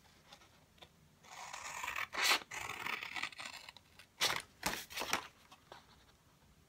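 Scissors cutting through cardstock: one drawn-out cut starting about a second in, then three quick snips a little past the middle.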